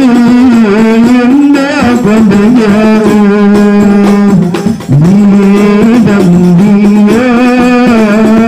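A solo male voice singing sholawat (Islamic devotional praise of the Prophet) loudly into a microphone. He holds long notes and bends them in ornamented, wavering runs, with one short breath about halfway through.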